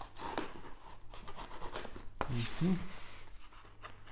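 A knife blade scraping and slicing through packing tape on a cardboard shipping box, with scratchy rubbing and a sharp click about two seconds in.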